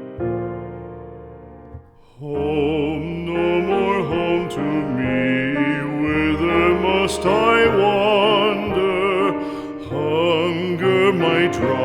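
A slow ballad: a soft piano chord fades away, and about two seconds in a singer with a wide vibrato comes in over sustained piano accompaniment.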